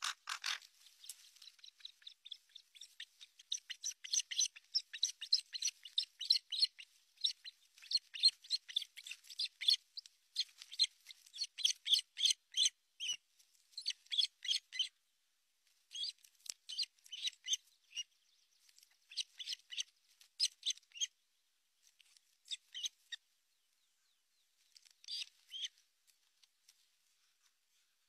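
Ospreys calling in alarm: long runs of rapid, short, high-pitched whistled chirps, with brief breaks about halfway and again two-thirds of the way through, dying away near the end. A sharp click right at the start.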